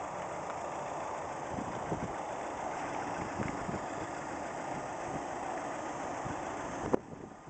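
Car engine idling steadily, with a click and a sudden drop in level near the end.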